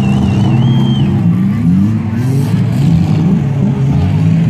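Several demolition derby cars' engines running and revving as the cars drive and ram each other, with pitch rising in a few revs partway through. A warbling high whistle sounds over them in the first second.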